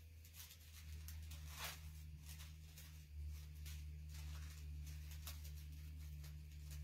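Small scissors snipping around a cut-out rose in thin paper: a run of faint, irregular snips.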